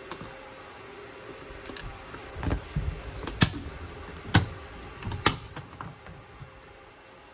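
Sharp clicks and knocks of handling work, three loud ones about a second apart after a few softer thumps, with smaller ticks in between.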